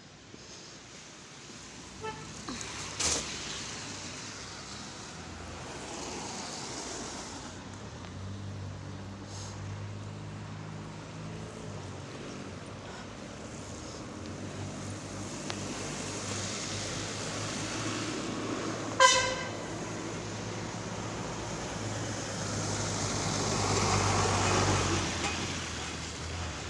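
Road traffic: vehicle engines running steadily, with one short car horn honk about 19 seconds in and a vehicle passing near the end.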